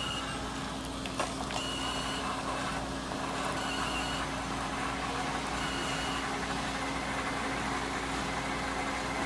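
Seattle's Best Coffee vending machine dispensing hot chocolate into a paper cup: a steady machine hum under the hiss of the pouring stream. A short high beep repeats about every two seconds through the first part.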